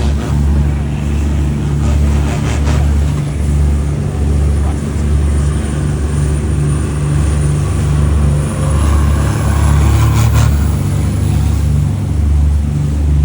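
Boat engine running steadily, a loud low drone that pulses evenly.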